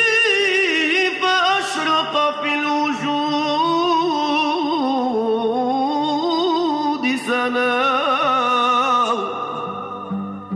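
A man singing a Moroccan devotional mawal in long melismatic phrases with heavy ornamentation, over a low steady tone. A new phrase begins about seven seconds in, and the voice breaks off just before the end.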